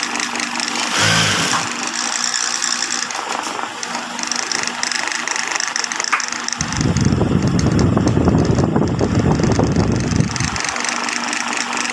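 High-speed industrial sewing machine stitching over the steady hum of its motor: a short burst about a second in, then a longer run of about four seconds in the second half.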